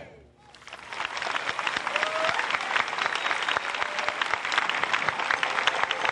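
Audience applause that swells up just after the music stops, then holds steady as dense clapping, with a few brief shouts or whistles from the crowd.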